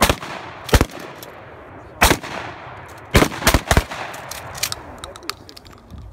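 Gunfire from pump-action shotguns on a firing line: a shot at the start, another under a second later, one at about two seconds, then a quick run of about four shots a little after three seconds, with fainter sharp cracks after.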